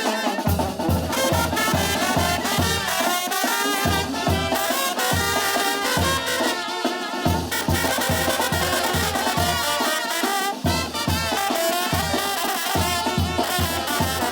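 Sinaloan banda playing live in an instrumental passage: a brass melody over a steady low beat from the bass and drums.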